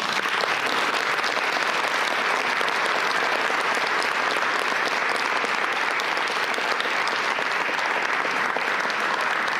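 Audience applauding steadily, sustained clapping for an award recipient as she is called up.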